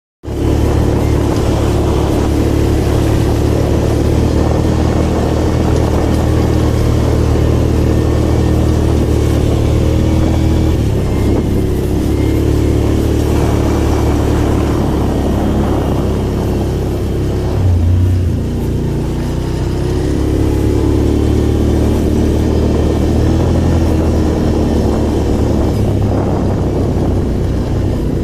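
ATV engine running under load, its note shifting up and down as the throttle is opened and eased off.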